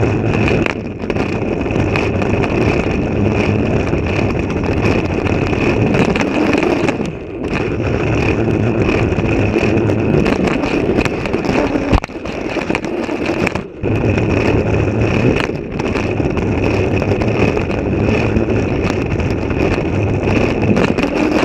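Battery-powered Trackmaster toy train's motor and gearbox whirring steadily as it runs along plastic track, heard close up from a camera riding on the train, with a steady high whine over the rattle. The sound drops out briefly a few times.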